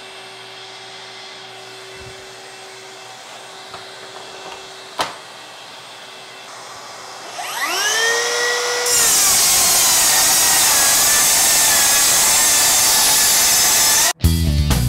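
Makita GSR02 40V XGT 10-1/4-inch rear-handle circular saw, brushless motor, spinning up with a rising whine that levels off, then ripping through an OSB subfloor sheet for about five seconds at a loud, steady level. The cut stops suddenly near the end. Before the saw starts there is only a faint steady hum.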